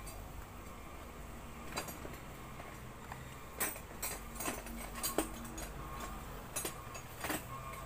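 A knife cutting and scraping a honeycomb free along the top of a wooden hive box, giving about eight sharp scrapes and clicks from about two seconds in, over a low steady hum from the Asian honeybee (Apis cerana) colony.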